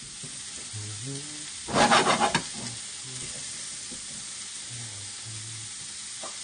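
Sliced mushrooms sizzling in hot oil in a frying pan, a steady frying hiss. A louder crackling burst comes about two seconds in.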